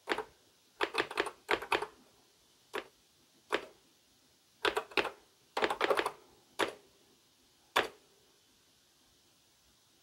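Keys being typed on a DEC VT102 terminal keyboard: short bursts of clicking keystrokes with pauses between them as a login and settings are entered, stopping near the end.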